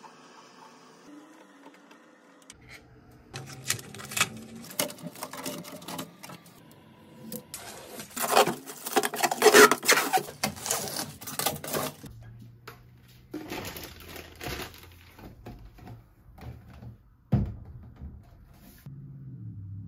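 Hands handling 3D-printer parts and packing material: rustling, clicks and knocks, with a loud scratchy stretch in the middle and a single sharp thump near the end.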